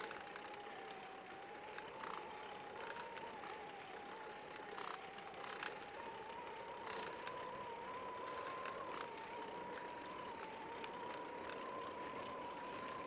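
A tadpole recumbent trike rolling along a paved path: tyre and drivetrain noise under a steady whine that wavers slightly in pitch, with a few faint clicks.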